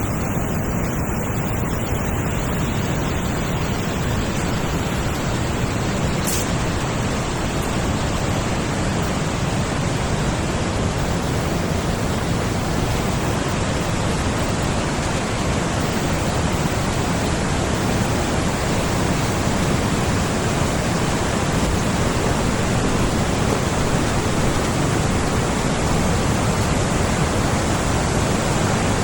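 A large forest stream rushing steadily, with one brief click about six seconds in.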